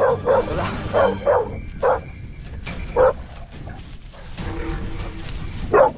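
Pit bull barking, a quick run of sharp barks in the first two seconds, then a single bark about three seconds in and another near the end.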